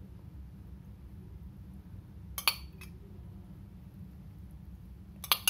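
Steel spoon clinking against the metal pan of sugar syrup as syrup is scooped out: one sharp clink about two and a half seconds in with a lighter tap just after, and a quick double clink near the end. A low steady hum lies underneath.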